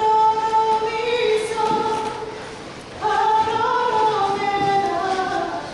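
A woman singing slow, long held notes in two phrases, with a short break about three seconds in; the second phrase slides gently downward.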